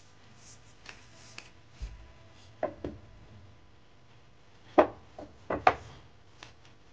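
Wooden bed-frame slats being handled and set back in place: a run of irregular wooden knocks and taps, the loudest two about five seconds in and just before six seconds.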